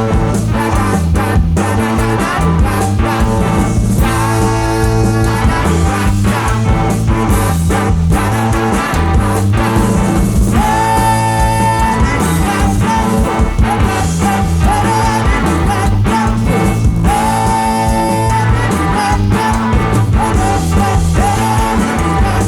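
Rock music with electric guitar, bass, drums and a singing voice, with a steady beat.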